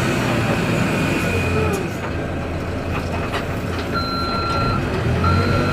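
XCMG backhoe loader's diesel engine running, with a few knocks and clanks, and from about four seconds in its reversing alarm sounding in long, even beeps.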